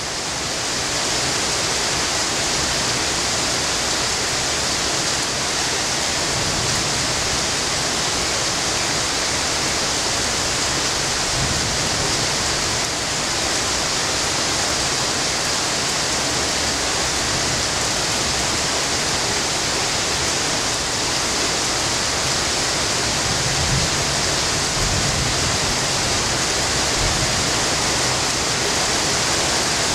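Heavy rain falling steadily at night, a loud even hiss with no break.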